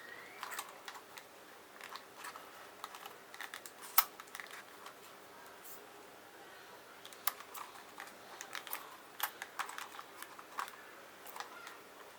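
Scattered light clicks and taps of hands unpacking and handling a small plastic drone and its packaging, with one sharper click about four seconds in and a busier run of clicks in the second half.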